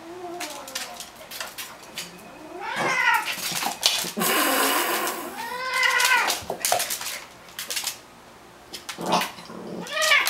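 Domestic cat yowling in drawn-out wails that rise and fall in pitch, three loud ones and a softer one at the start, with short clicks between: a cat warning off a dog.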